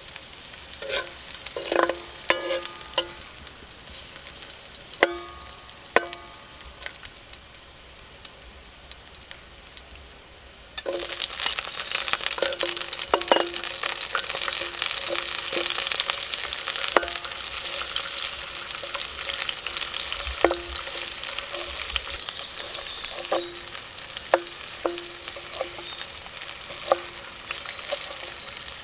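Garlic and green onion sizzling in oil in a metal wok, with a metal spatula knocking and scraping against the pan and making it ring briefly. About a third of the way in, the sizzle suddenly gets much louder as sliced red onion goes into the hot oil. The spatula knocks carry on as it is stirred.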